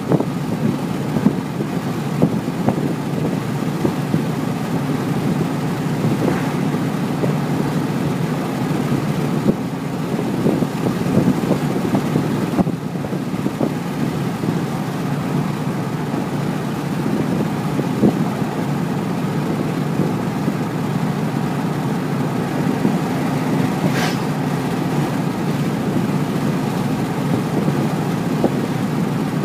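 2014 Mustang GT's 5.0 L Coyote V8 with Roush axle-back mufflers cruising at a steady speed, heard from inside the cabin as a steady low exhaust drone. One brief sharp click late on.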